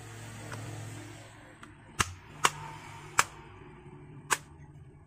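Four sharp, hard clicks at uneven intervals as a car seat belt retractor is put back together and closed up.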